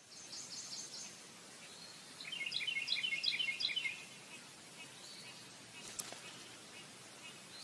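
Faint bird chirping: two quick runs of short, high repeated notes, the second a little lower, over a steady hiss, with a single click about six seconds in.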